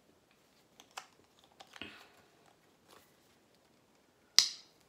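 Fingernails picking at the plastic seal on a small tube of menthol cream: a few faint clicks and scrapes, then one loud, sharp crackle near the end as the seal is pulled off.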